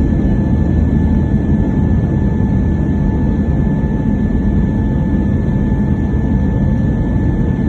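Airbus A320neo's jet engines running at takeoff power: a steady, loud low rumble with a constant high whine over it.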